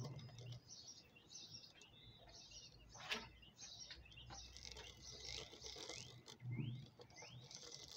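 Faint background birdsong: scattered high chirps and a few short rising notes, with a single sharp click about three seconds in and a low rumble of distant traffic in the middle.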